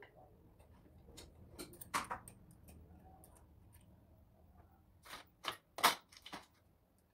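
Small metal parts clicking and tapping as they are handled and fitted by hand at the bearing of a compressor housing. The clicks are scattered, one louder near two seconds in, then a quick cluster of sharper clicks near the end.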